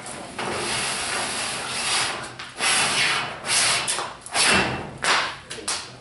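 Old vinyl bottom weather seal of a steel garage door being pulled out through its retainer channel: a long rubbing slide, then several shorter pulls.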